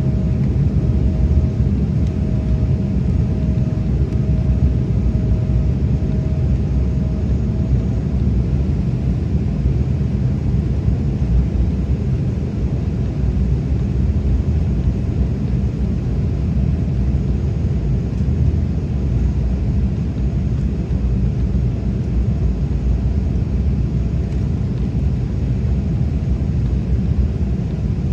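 Steady low roar of a passenger airliner's engines and airflow inside the cabin during descent. A faint steady tone sits over it and fades out about eight seconds in.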